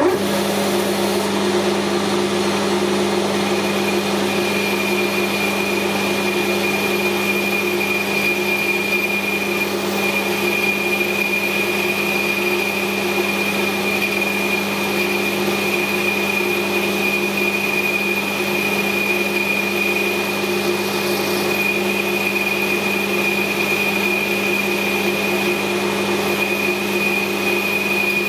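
Metal lathe starting up and running steadily while the tool takes a light clean-up cut on the inside edge of a steel plate. A high steady whine comes in a few seconds in.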